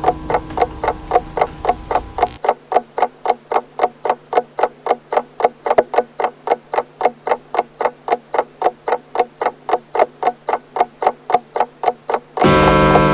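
Pendulum clock ticking evenly, about four ticks a second. The low ringing of its gong dies away until it cuts off about two seconds in, and near the end the gong strikes and rings loudly.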